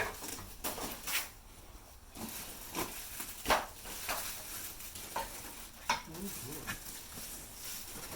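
Packaging and grill parts being handled: rustling with scattered sharp clicks and knocks, the strongest about three and a half seconds in.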